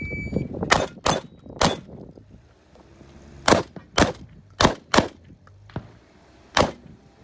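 A shot-timer start beep, then eight shotgun shots: three quick shots about a second in, a pause, four more about three and a half seconds in, and a last shot near the end.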